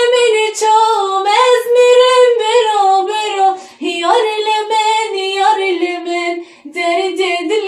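A high solo voice singing unaccompanied, a Kurdish song with sliding, ornamented notes, with two short breaths.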